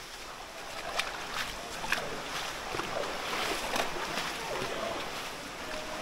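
Steady rushing water of the stream and waterfall in the rock canyon at Tukad Cepung, with two sharp knocks about one and two seconds in.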